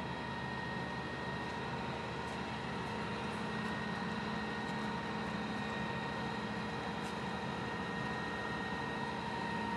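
Csepel RF 20 radial drilling machine running steadily, its motor and gearbox giving an even mechanical hum with a thin, steady whine over it.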